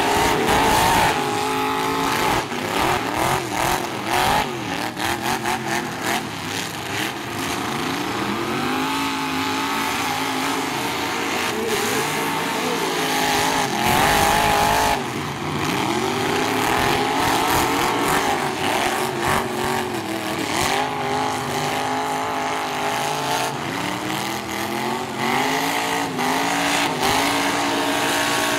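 Engines of full-size demolition-derby pickup trucks revving hard, rising and falling in pitch as the trucks accelerate and back up, with sharp crashes of trucks hitting each other; the loudest hit comes about fourteen seconds in.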